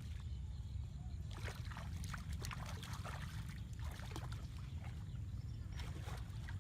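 Water splashing and sloshing in short bursts, over a steady low rumble.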